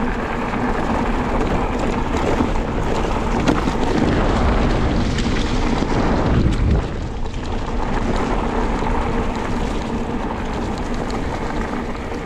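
Wind buffeting the microphone and tyres rumbling over a leaf-strewn dirt track as a loaded bicycle rolls fast downhill. It is loudest in the middle, easing a little near the end, with a few faint knocks.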